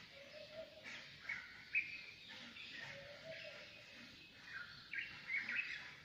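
Birds chirping and calling in short, quick phrases over a faint background hum of the waking city, the loudest calls about two seconds in and again near the end.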